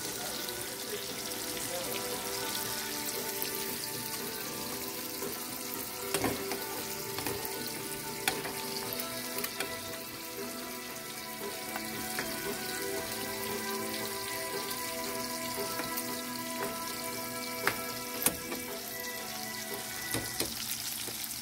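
Bacon strips sizzling and crackling steadily as they fry in hot fat in a skillet, with a few sharp clicks along the way. Soft background music with held notes plays underneath.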